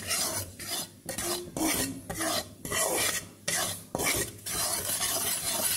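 Dry whole-wheat flour being stirred and scraped around a heavy kadhai as it roasts on high heat, in repeated rasping strokes with short pauses between them.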